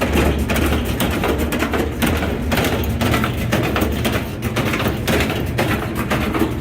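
Whirlpool washing machine spinning with its load out of balance, the tub knocking and thumping against the cabinet over and over in a rough rhythm, with a steady low motor hum underneath.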